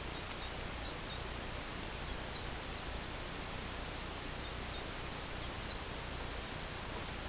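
Steady outdoor background hiss with a string of faint, short high chirps from a small bird.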